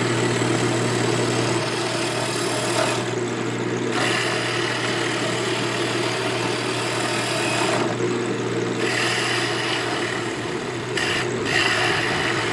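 Craftsman 12-inch wood lathe running with a steady motor hum while a flat chisel cuts a spinning wooden blank, making a hissing scrape as the blank is turned down to a cylinder. The cutting hiss drops out for a moment about three, eight and eleven seconds in.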